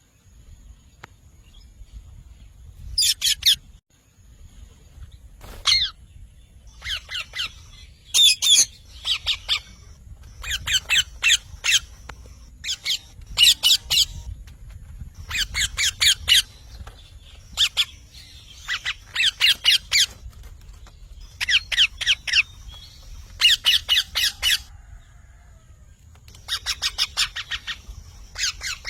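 A parrot squawking: bursts of rapid, shrill, repeated calls, several notes to a burst, coming every second or two with short pauses between.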